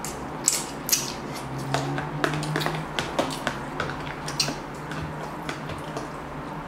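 Ramen noodles being slurped with wet sucking sounds in the first second, then a metal fork clicking and scraping against a plastic container as the last noodles are gathered, with another slurp partway through.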